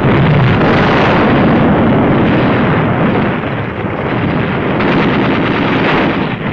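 Artillery barrage: a dense, continuous rumble of gunfire and shell bursts with no distinct single shots, easing slightly about four seconds in.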